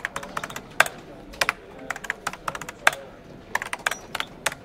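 Typing sound effect: a run of irregular keystroke clicks, several a second, with a few louder strikes among them.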